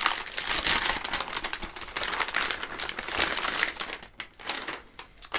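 Metallic anti-static bag crinkling as a motherboard on its foam tray is slid out of it: dense crackling for about four seconds, then only a few scattered crinkles near the end.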